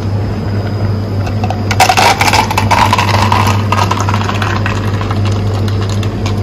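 Shaken iced refresher poured from a plastic shaker into a plastic cup, starting about two seconds in: liquid splashing with ice cubes clattering, and the pitch of the filling rising as the cup fills. A steady low hum sits underneath throughout.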